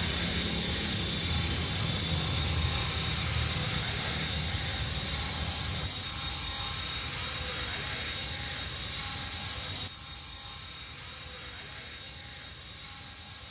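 Radio-controlled model helicopter in flight: a steady high whine over a wash of rotor and wind noise, with a low rumble in the first half; the sound drops noticeably quieter about ten seconds in.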